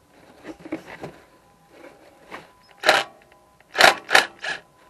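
Hand tools being handled while working on a motorcycle: a few sharp clanks and clicks, the loudest four coming about three and four seconds in.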